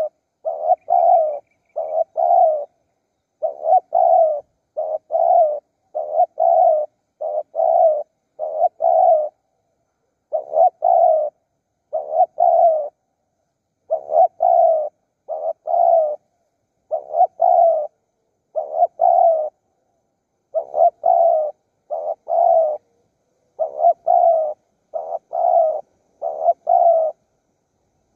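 Spotted dove calling: a long run of short notes in quick clusters of two to four, with brief pauses between clusters.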